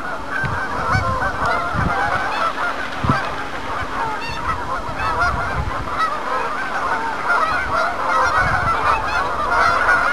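A large flock of geese on the water honking continuously, a dense chorus of many overlapping calls.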